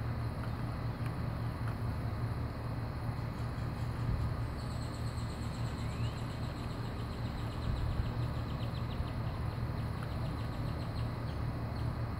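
Steady low outdoor rumble. From about four seconds in until near the end, a high chirping repeats rapidly, about five chirps a second.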